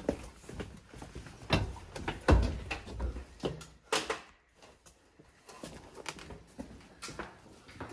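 Footsteps and the knocking of carried gear as soldiers walk through a hallway: a string of irregular thumps and clicks, the loudest a little over two seconds in, with a sharp knock at about four seconds.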